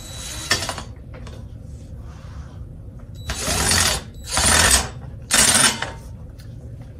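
Cordless impact driver running a screw into the stool seat in short trigger pulls: a brief run at the start, then three rattling bursts of about half a second each in the second half as the screw is driven home.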